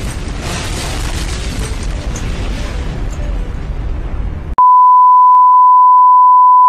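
Long, noisy rumble of a nuclear explosion. About four and a half seconds in it cuts off abruptly to a loud, steady, high-pitched test-card tone, the "technical difficulties, please stand by" beep.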